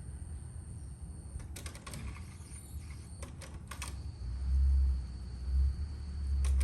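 A series of sharp mechanical clicks, like switches or selector knobs on a hi-fi amplifier being operated, over a steady low hum. Low thumps come about four to six seconds in.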